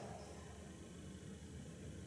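Quiet room tone: a faint, steady hiss with no distinct sounds.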